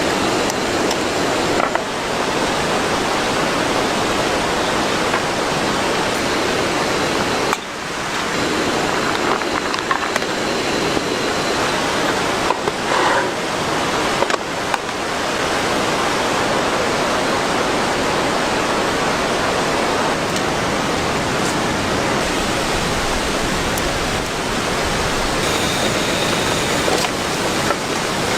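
Heavy rain pouring down in a steady, dense hiss, dipping briefly about seven seconds in.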